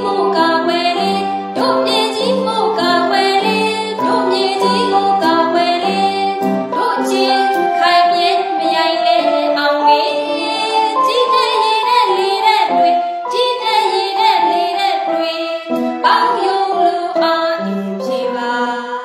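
A woman singing a Burmese song, accompanied on an electronic keyboard.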